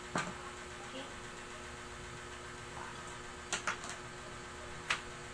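A few light clicks and knocks from an electric blender's plug and power cord being handled, over a steady faint hum. The blender motor is not running.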